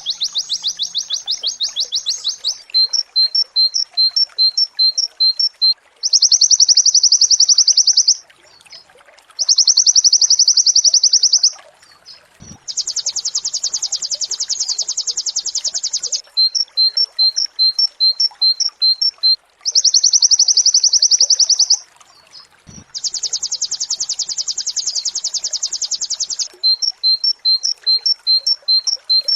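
White-eye (pleci) singing in rapid high trills, 'nembak', each lasting two to three seconds. These alternate with runs of short chip notes, about two a second, over and over.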